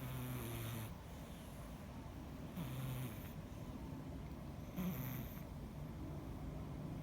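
A fat domestic cat snoring in its sleep: three short snores about two and a half seconds apart, each with a breathy hiss.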